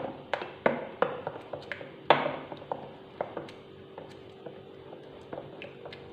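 Wooden spoon stirring peach purée in a stainless-steel bowl, knocking against the metal sides about three times a second for the first two and a half seconds, then with fainter, sparser taps. The gelatin is being stirred into the still-warm purée to dissolve it.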